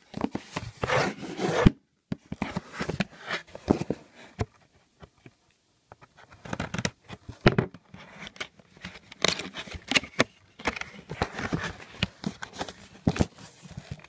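SSD retail packaging being opened by hand: irregular tearing, scraping and crinkling of cardboard and plastic in short bursts with brief pauses.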